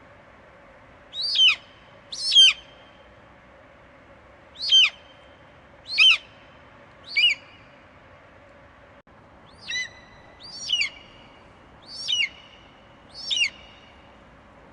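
Eagle screeching: nine short, high calls, each sliding sharply downward in pitch, spaced about one to two seconds apart, over a faint steady hum.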